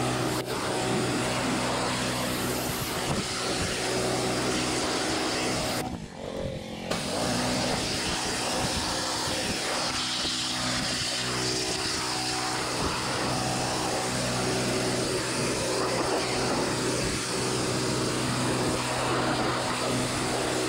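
Pressure washer running, a steady motor hum under the hiss of its water jet blasting the floor of an M1101 trailer tub. The sound drops out briefly about six seconds in.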